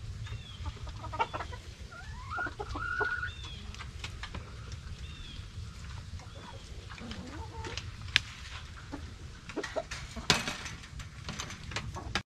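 Backyard hens clucking and calling, with short high chirping notes and a rising squawk about two to three seconds in. Two sharp knocks stand out, about eight and ten seconds in.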